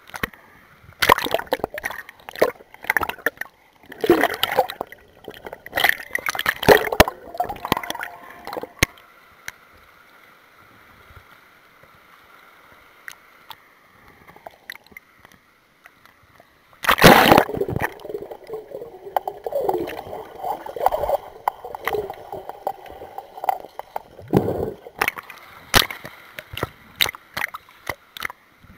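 Pool water splashing and bubbling, heard by a camera underwater. There are loud bursts of splashing through the first nine seconds and again from about seventeen seconds in, with a quieter, muffled stretch between them.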